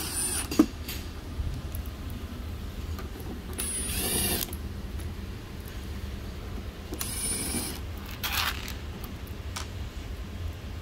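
Cordless drill/driver running in four short bursts with a high motor whine, driving the screws that hold a sheet-metal cover.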